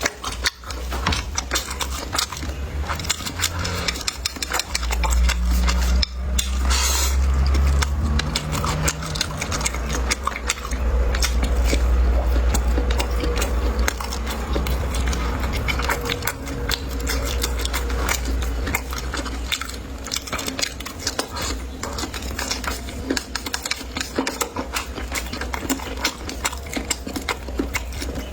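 Close-up eating sounds: chewing and biting, with utensils clicking against dishes, over a steady low rumble.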